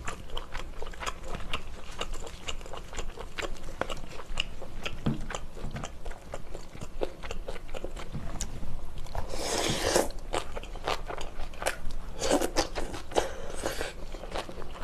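Close-miked chewing of mouthfuls of spicy stir-fried octopus and rice: a run of wet clicks and crunches. There are two louder, noisier stretches, about nine and twelve seconds in.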